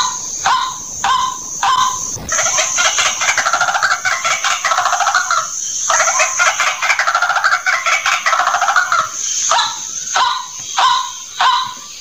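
White-breasted waterhen calling: loud, short call notes repeated about twice a second, breaking about two seconds in into a long, rapid chattering series, then returning to the spaced repeated notes near the end. A steady high-pitched buzz runs behind the calls.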